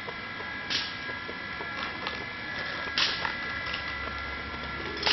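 A steady high hum, with two short scraping rustles about a second in and three seconds in as a steel spoon tips coriander powder into a pan of raw goat blood and intestines.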